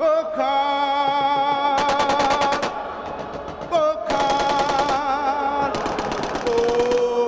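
Three bursts of rapid machine-gun fire, an added sound effect, over a voice holding long, wavering sung notes of a struggle song.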